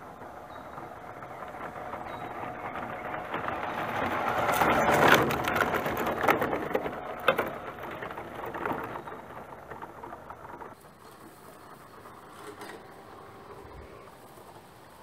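Tamiya CC-01 radio-controlled 4WD car's electric motor and gearbox whining as it drives over leaf litter and gravel. It grows louder as the car approaches, with sharp crunches and knocks from the tyres and chassis about five to seven seconds in. After about eleven seconds it drops to a quieter, more distant whine.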